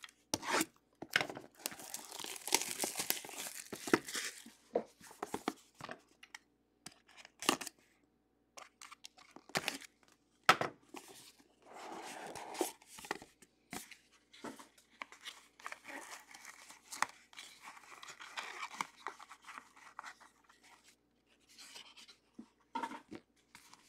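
Hands opening a box of trading cards and unpacking it: several bouts of tearing and plastic crinkling and rustling, broken by small sharp clicks of card holders and cardboard being handled.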